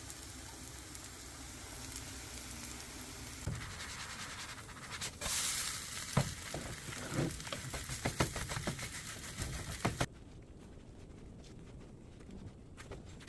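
Batter frying in oil in a pan, a steady sizzle, with a run of clicks and taps in the middle; the sizzle drops away suddenly about ten seconds in, leaving a faint hiss.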